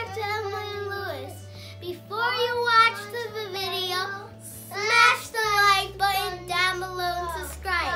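A child singing a short intro song over backing music with a plain, steady bass line that changes note a few times.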